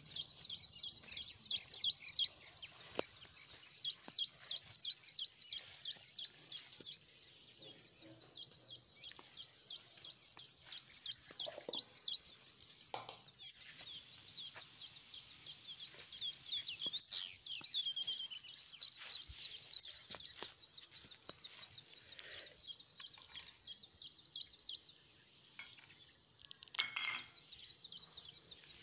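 A bird chirping rapidly and repeatedly, about six high chirps a second, pausing briefly now and then. A few single knocks of utensils on the counter come in between.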